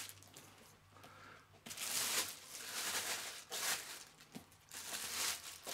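A clear plastic bag crinkling and rustling in several bursts, starting about two seconds in, as hands pull it down off the sides of a portable speaker.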